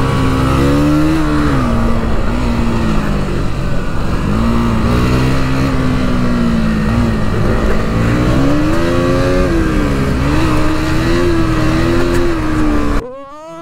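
KTM Duke's single-cylinder engine at speed, heard from the rider's seat. Its note rises and falls as the throttle is opened and closed through a run of bends. Near the end it cuts off abruptly.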